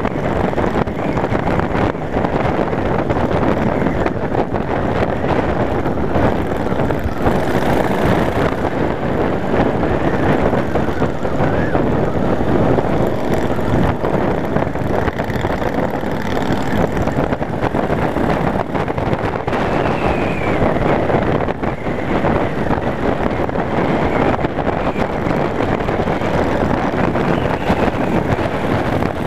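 Yamaha Wildstar V-twin cruiser running steadily at road speed, with heavy wind buffeting on the handlebar-mounted microphone.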